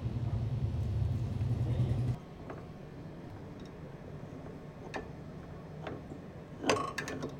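A steady low rumble, like a vehicle engine running in the background, that cuts off abruptly about two seconds in. After it, a few light metallic clicks from motorcycle rear-brake parts being handled.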